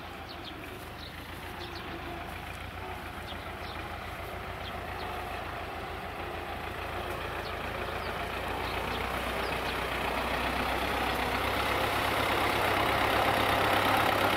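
Farm tractor engine running as the tractor drives closer, growing steadily louder.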